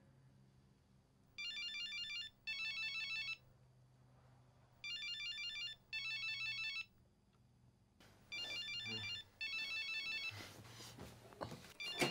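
Mobile phone ringing with an electronic trilling double ring, repeating in pairs with a pause between, three pairs in all. Rustling movement joins in the last third.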